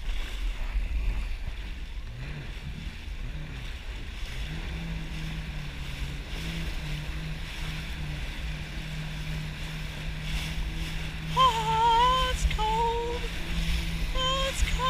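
Yamaha jet ski engine running, with low wind rumble and water noise; its hum settles steady about four seconds in. Near the end come a few short, bending pitched calls.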